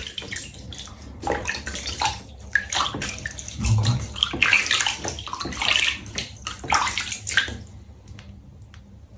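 Water splashing in a bath as an animal is lathered and scrubbed with body wash, in uneven strokes that die down near the end.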